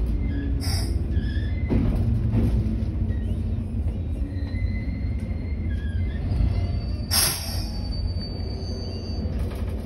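103 series 3500 subseries electric train running, heard inside the driver's cab: a steady low rumble with faint high whining tones over it. A brief burst of hiss comes about seven seconds in.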